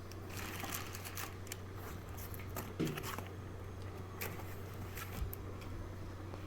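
Handling noise as the smart lock's parts and packaging are moved about: rustling with scattered light clicks and knocks, one firmer knock near the middle, over a steady low hum.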